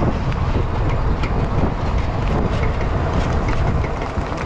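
Safari vehicle driving: steady engine and tyre rumble with scattered light rattles and knocks.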